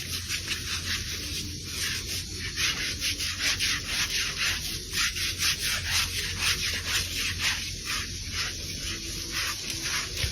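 Rapid, scratchy rubbing strokes, several a second, over a low steady hum.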